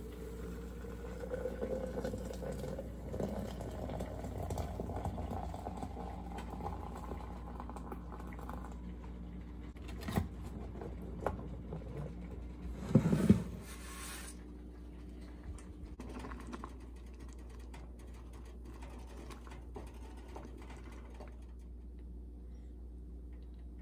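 Liquid being poured into a container, its note rising steadily as the container fills. A few light knocks follow, then a short louder clatter about halfway through.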